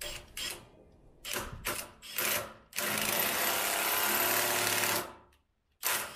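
Cordless impact wrench spinning a lug nut down on a wheel-stud installer tool, pulling a new longer wheel stud through the hub. It runs in a few short bursts, then for about two seconds without stopping, then one last short burst near the end.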